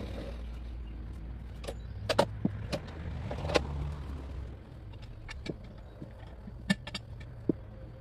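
Log handling at a portable bandsaw sawmill: a low machine hum that fades about halfway through, under scattered sharp metallic knocks and clanks as a cant hook and the mill's log clamps work a squared black locust log.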